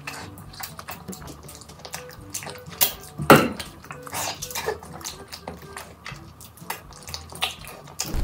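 Eating sounds: wet chewing and smacking of a big mouthful of food, with many sharp clicks and a louder wet burst about three seconds in.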